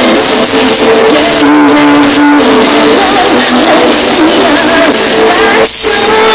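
Live pop music played loud over a concert sound system, with held, wavering melody notes.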